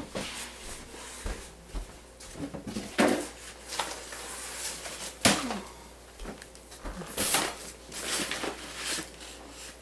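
A hand working in a plastic tub of flour: scattered knocks, scrapes and rustles of the tub, with two sharper knocks about three and five seconds in.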